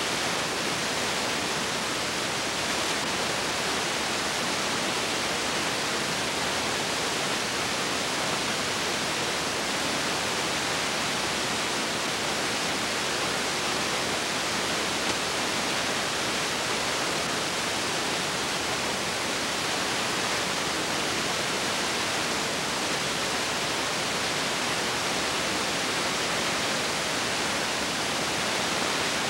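Steady, even hiss of recording noise with no other sound, as on the soundtrack of a silent home-movie transfer.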